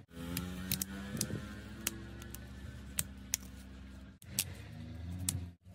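Scattered sharp clicks and taps of a metal pry tool and plastic parts as a Samsung Galaxy A03 Core is opened up, over a steady low hum. The sound cuts out briefly twice, near the end.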